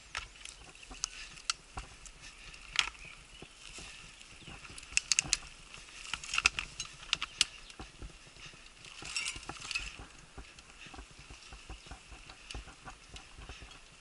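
Mountain bike rattling over a bumpy dirt singletrack on a descent: irregular sharp clicks and knocks from the bike over bumps, bunched in a quick clatter about five to seven seconds in, over the faint hiss of tyres on dirt.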